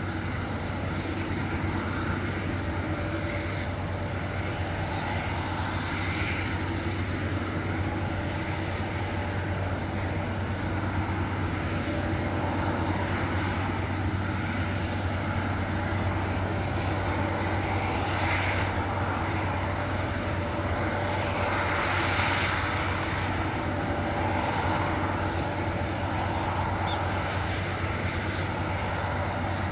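Airbus EC130B4 helicopter's turboshaft engine and rotors running while it sits on the ground: a steady low hum with fainter steady tones above it. A hiss swells twice in the second half.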